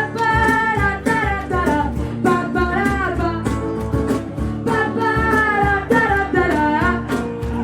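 A voice singing a melody over strummed acoustic guitar, in a live performance of a simple pop song.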